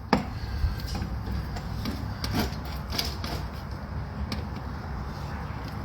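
Scraping and rubbing against wood, with a few light knocks, as honeycomb is cut and scraped out of the hive cavity.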